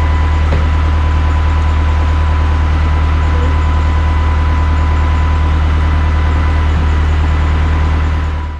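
An engine running steadily at a constant speed with a deep drone, fading out near the end.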